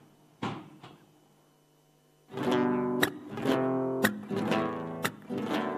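Acoustic guitar strumming a malambo accompaniment. Two light strokes and a short lull lead into loud strumming a little over two seconds in, with a sharp knock about once a second.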